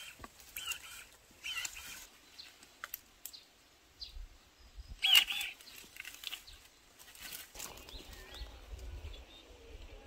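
Birds chirping in short, scattered calls, the loudest about five seconds in. A low rumble comes in during the second half.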